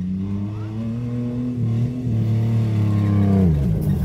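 Off-road 4x4 engine revving under load: the revs climb a little, hold high, then drop about three and a half seconds in.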